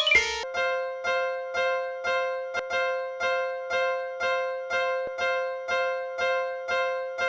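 Railroad crossing warning bell in a cartoon soundtrack: one bell-like electronic tone struck steadily about twice a second, each strike fading before the next. The last notes of a short falling melody sound in the first half-second.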